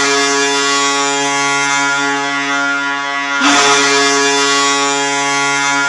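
Boston Bruins arena goal horn blasting, a loud steady chord of many tones, cut briefly and sounded again about three and a half seconds in.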